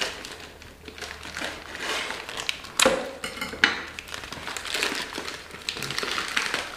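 Plastic frozen-food packaging crinkling and rustling as it is handled, with a couple of sharper clicks about three seconds in.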